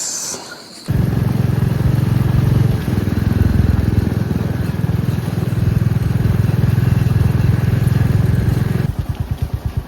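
Motorcycle engine running, coming in suddenly about a second in, then dropping near the end to a slower, evenly pulsing idle.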